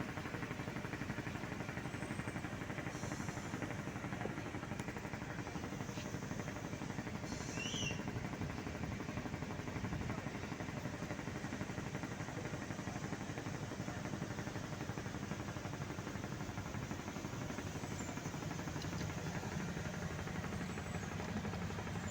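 Steady low background rumble, like machinery or traffic, with a couple of brief high squeaks about three and seven seconds in.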